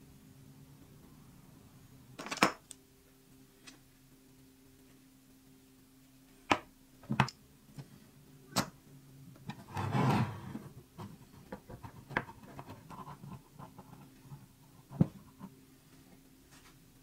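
Wooden grip panels and metal clamps handled on a workbench: several sharp knocks and clicks, a brief scraping rub about ten seconds in, then a run of small ticks. A faint steady hum runs underneath.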